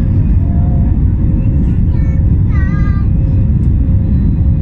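Steady low rumble of an Airbus A319's CFM56 turbofans and rushing airflow, heard inside the cabin as the airliner climbs out, with a faint steady hum running underneath.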